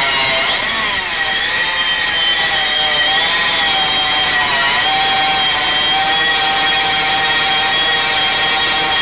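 Hydraulic stone-cutting machine running and cutting stone slab: a loud, steady mechanical whine with a sawing hiss. Its pitch wavers about a second in and again around four seconds in, then holds steady.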